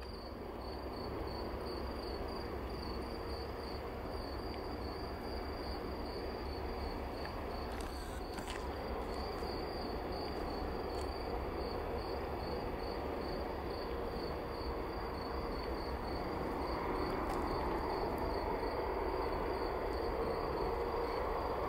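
Airbus A330-200 airliner's jet engines rushing as it comes in to land, growing gradually louder toward the end. A cricket chirps steadily over it, about three chirps a second.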